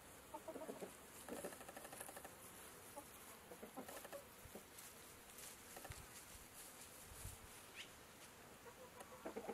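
Chickens clucking faintly in short, scattered calls.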